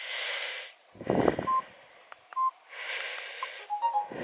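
A hiker breathing hard, with two heavy breaths out, and a few short electronic beeps in between from a handheld phone.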